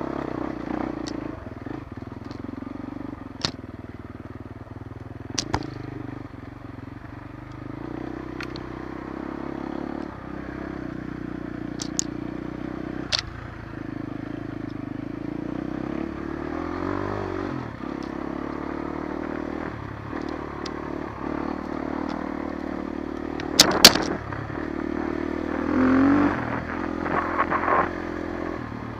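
Off-road motorcycle engine running as the bike rides a rough trail, the revs rising and falling a few times. Sharp clicks and knocks come every few seconds, loudest as a pair about three quarters of the way in.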